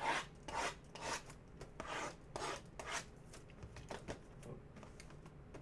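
Rasping, scraping strokes of cardboard and plastic packaging being handled as a sealed trading-card hobby box is opened, roughly two a second, tailing off after about four seconds.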